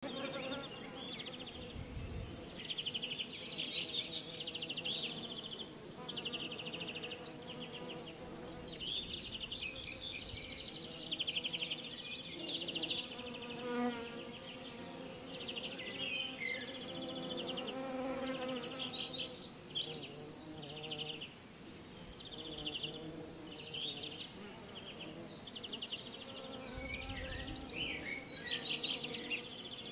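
Honeybees buzzing at the hive: a steady swarm hum, with closer buzzes rising and fading again and again as bees pass near.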